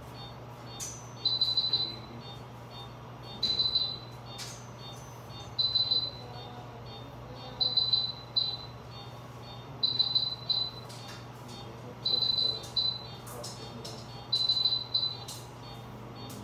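Electronic alarm on veterinary surgical monitoring equipment: a cluster of several quick high-pitched beeps, repeating about every two seconds, over a steady low hum.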